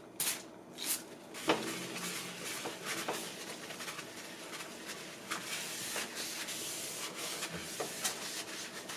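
Trigger spray bottle spritzing cleaner twice onto a paper towel, then a knock, then the paper towel rubbing back and forth across the oven's glass door.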